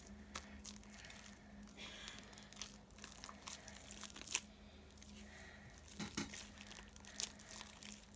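Faint sticky clicks, crackles and soft pops from hands kneading and pulling a clear-glue and laundry-detergent slime that is still sticky and not yet binding, with a few sharper ticks as it pulls apart, over a low steady hum.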